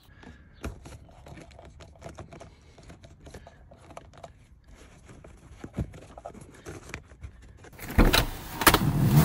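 Bundled cables and plastic seat trim being handled and pressed into place: scattered small clicks and rustles, then louder rustling and scraping about eight seconds in.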